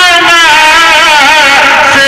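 A man singing an Islamic devotional song (naat) into a microphone, amplified and loud. He holds long notes with a wavering, ornamented pitch, with no instruments under the voice.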